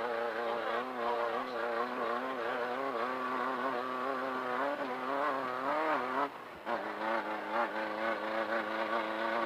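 Off-road race car engine running at moderate revs, its pitch wavering up and down as the throttle varies, with a brief drop in sound just past six seconds in.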